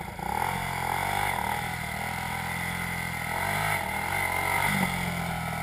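Off-road vehicle engine running at idle and revved up and back down twice, about a second in and again past the middle.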